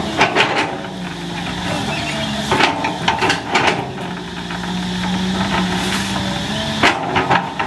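Cat 320C excavator's diesel engine running with a steady hum. Clusters of sharp knocks and cracks come just after the start, about three seconds in, and near the end as the bucket works through the brush.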